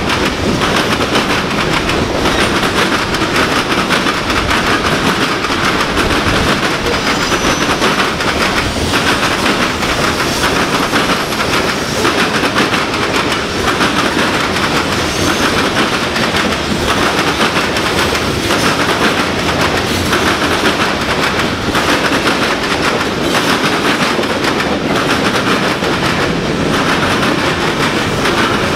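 Manifest freight train's cars (covered hoppers, tank cars and a boxcar) rolling past, their steel wheels clicking and clattering over the rails in a steady, loud rumble.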